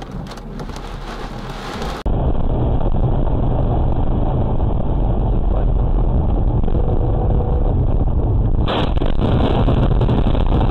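Heavy rain and wind on a dashcam, then a loud, steady rumble of road and engine noise from a car at highway speed. About nine seconds in there is a sudden impact, followed by noisier clatter as the windshield is hit.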